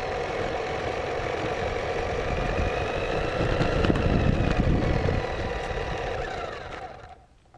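1:16-scale DEERC remote-control truck running, its small electric motor giving a steady whine over tyre and drivetrain rumble. The whine shifts slightly in pitch a few seconds in, and the sound fades away near the end.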